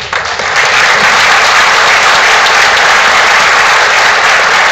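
Audience applauding: sustained clapping that starts at once and holds steady.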